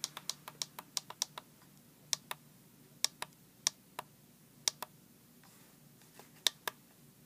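Buttons on a handheld oscilloscope clicking as they are pressed to step through its time-base settings: a quick run of about a dozen clicks in the first second and a half, then single clicks and pairs a second or so apart.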